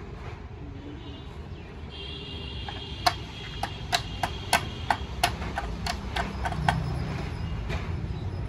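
About a dozen sharp knocks or taps at uneven intervals, roughly two to three a second, over a steady low hum.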